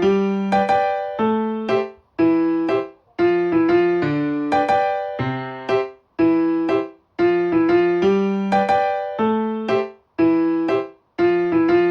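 Background music: a light, bouncy piano tune in short repeated phrases, with brief pauses between phrases about every two seconds.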